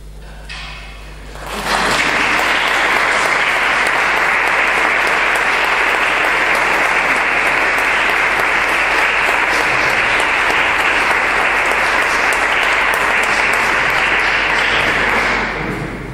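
Audience applauding. The clapping starts up quickly a couple of seconds in, holds steady, and dies away near the end.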